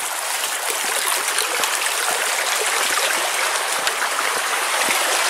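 Shallow forest creek flowing steadily over gravel and stones.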